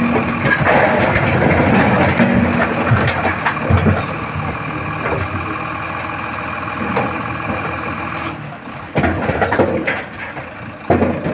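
Heavy tipper truck's diesel engine running as its raised bed tips further and a load of rocks slides out of the back. The rocks make a loud rumbling rush in the first few seconds, which gives way to the steady engine, with a couple of sharp knocks near the end.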